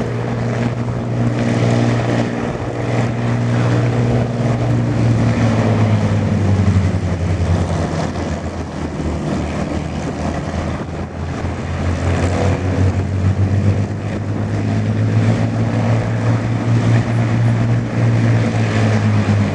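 Avro Lancaster's four Merlin V12 piston engines running at low power on the ground, a steady deep drone of engines and turning propellers; the note dips a little around the middle and comes back up.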